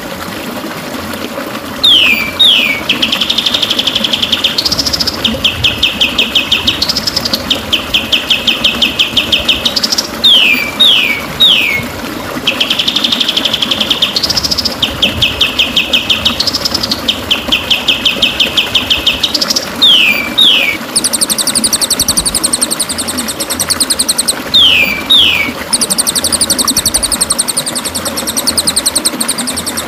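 White-rumped shama (murai batu) song: long fast trills of rapid-fire notes, broken by quick downward-sweeping whistles, repeating over and over. About two-thirds of the way in a higher, faster chatter joins it. A steady low hiss runs underneath.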